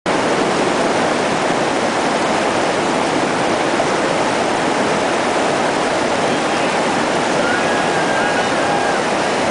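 River water rushing steadily past the bank, a continuous even rush.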